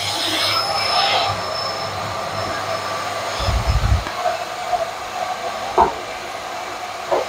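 Miele Complete C3 cylinder vacuum cleaner running steadily while its floorhead is pushed back and forth over a hard laminate floor. A low thump comes about three and a half seconds in.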